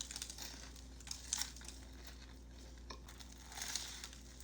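Faint rustling and crinkling of a sandwich's paper wrapping being handled, with a few light clicks.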